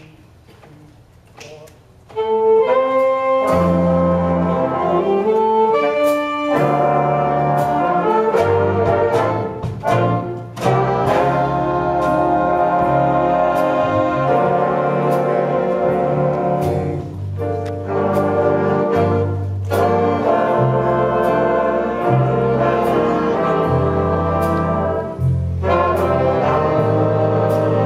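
Student jazz big band playing a slow ballad, with saxophones, trumpets and trombones over a walking low bass line. The band comes in about two seconds in after a quiet start, and the level swells and eases back in places.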